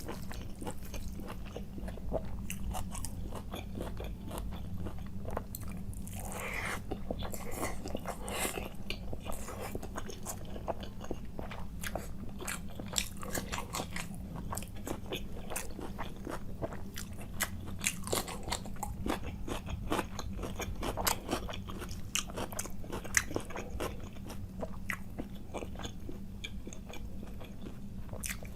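Close-miked chewing and biting: irregular wet crunches and mouth clicks of a person eating curry and rice, over a steady low hum.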